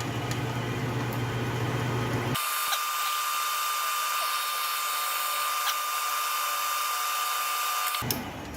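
Electric power tool motor running steadily: a low hum that switches abruptly about two seconds in to a hissing, high-pitched whine with a steady tone, then cuts back to the low hum near the end.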